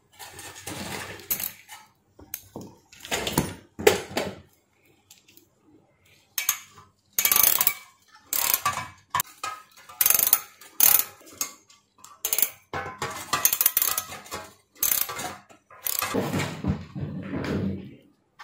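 Metal clinks and ratchet clicks from a socket ratchet and needle-nose pliers tightening the nut on an electric heater's brass terminal, coming in irregular bursts with short pauses between them. Near the end there is a longer scraping rustle as the coiled heating element is handled.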